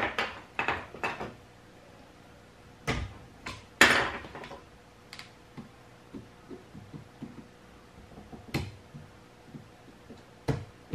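Pliers and hard plastic battery-pack parts clicking and clacking as the pack is pried apart by hand. About ten irregular sharp knocks, the loudest about four seconds in, with a quieter stretch before a last click near the end.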